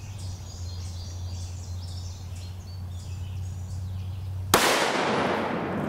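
A single high-velocity 5.56 NATO rifle shot from a 22-inch barrel, firing a tungsten-core armor-piercing round, about four and a half seconds in: a sharp crack followed by a long echoing decay.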